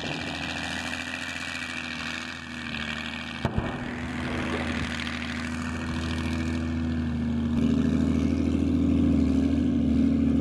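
Diesel engine of a 2S7M Malka tracked self-propelled gun running steadily, growing louder about three-quarters of the way through, with one sharp click about three and a half seconds in.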